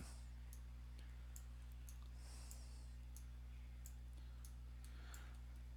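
Faint computer mouse clicks, about a dozen at irregular intervals, over a steady low hum.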